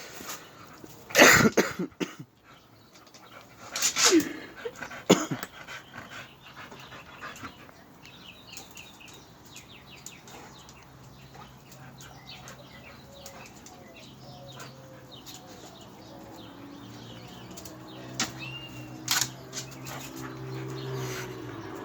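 A dog barking a few sharp times in the first few seconds, then whining and whimpering softly, with a longer drawn-out whine near the end.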